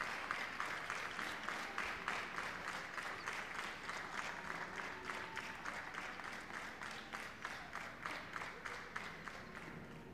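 Crowd applauding, with individual claps standing out, slowly fading away.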